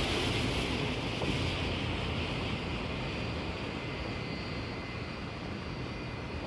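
Aircraft engine noise from jets on the airfield, a steady rush that slowly fades, its higher part dropping away first.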